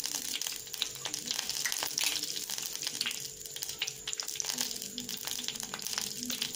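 Mustard seeds frying in hot oil in a clay pot: a fine sizzle with many quick, scattered pops as the seeds splutter, the stage of tempering when they are left to crackle before the tomatoes go in.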